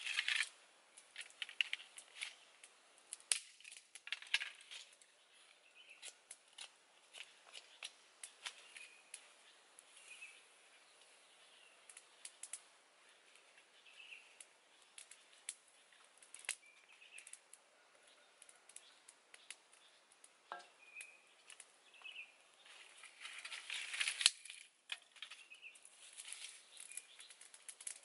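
Sparse sharp crackles and clicks from a small wood fire and the dry twigs and leaf litter around it, with a louder rustling burst near the end. A few faint short bird chirps come through now and then.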